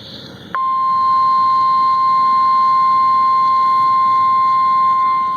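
NOAA Weather Radio's 1050 Hz warning alarm tone: one loud, steady tone that cuts in sharply about half a second in and holds. It signals that a warning, here a severe thunderstorm warning, is about to be read.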